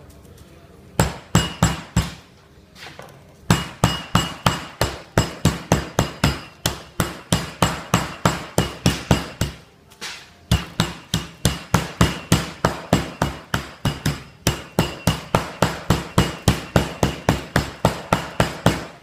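Meat mallet pounding a chicken breast flat between sheets of cling wrap on a board: a steady run of strikes, about three or four a second, with two short breaks, one a couple of seconds in and one about halfway.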